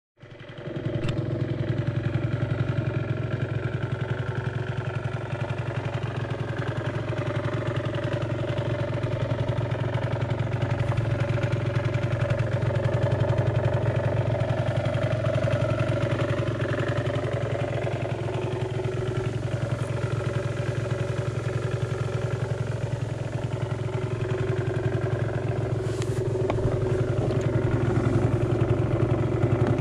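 Gilera Runner 50 scooter's small two-stroke single-cylinder engine idling steadily.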